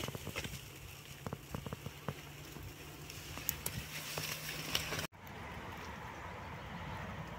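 Scattered crackling and rustling of dry fallen leaves underfoot, with light handling noise, over a faint steady low hum. About five seconds in the sound cuts off abruptly and gives way to a smoother, steadier background hiss.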